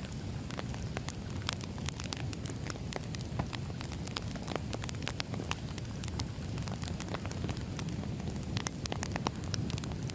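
Burning firewood crackling, with frequent sharp, irregular pops over a steady low rush of the flames.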